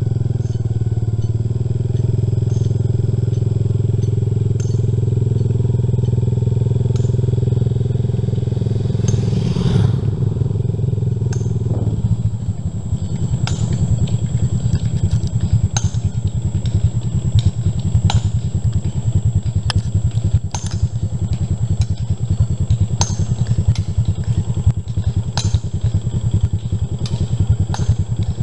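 Motorcycle engine running steadily while riding along a road. About twelve seconds in, the even hum turns into a rougher, fast-pulsing rumble with scattered light clicks.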